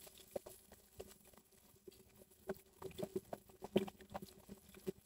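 Pieces of skin-on pork frying in hot oil in a pan: scattered, irregular crackles and pops of spitting fat, faint.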